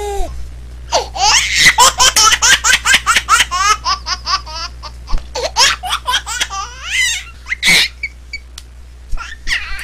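Hearty, high-pitched laughter: a long run of quick repeated laughs, thinning out over the last few seconds.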